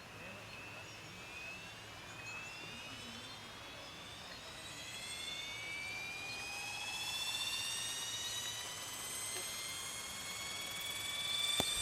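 Self-built radio-controlled autogyro's motor and propeller running with a high whine that climbs slowly in pitch and grows louder, with a single sharp click near the end.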